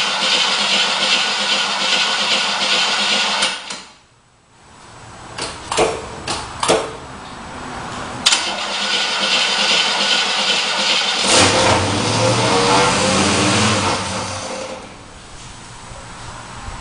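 1967 Chevelle engine being started after sitting for three months. A steady loud running sound cuts off early on, a few sharp clicks follow, then about eleven seconds in the engine turns over and fires for about three seconds before the sound falls away.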